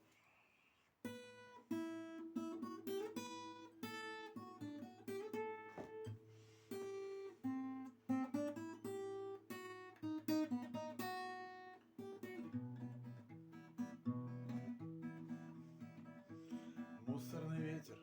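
Acoustic guitar playing a song's introduction, single notes picked one after another, starting about a second in; lower bass notes join in about two-thirds of the way through.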